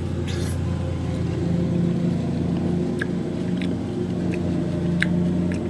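A motor running steadily with a low, even hum throughout. Over it, a brief wet hiss near the start and a few faint clicks about three and five seconds in fit a bite into a juicy tomato being chewed.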